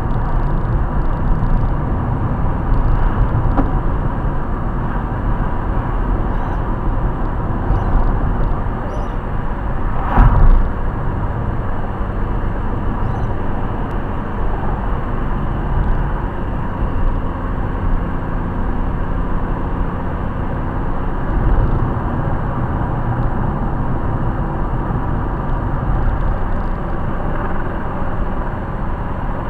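Car driving, heard from inside the cabin: steady engine and tyre noise on the road, with one brief loud thump about ten seconds in.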